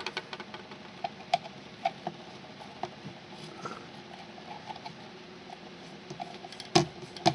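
Light, scattered clicks and ticks of a screwdriver tightening wires into a screw terminal block, with one sharper click near the end.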